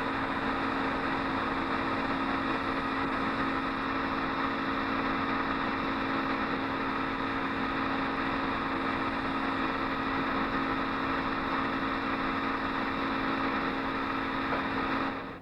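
Film projector running with a steady mechanical whir and a constant hum, cutting off near the end.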